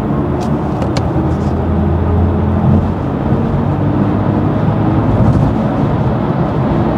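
Cabin noise inside a BMW i4 eDrive40 electric sedan accelerating at highway speed: steady tyre and road rush with a low hum and no engine note.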